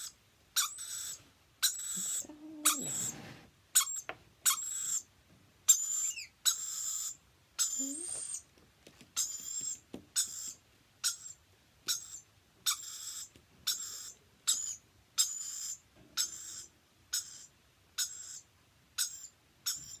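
A lorikeet calling over and over, short harsh high-pitched squawks coming regularly about once a second.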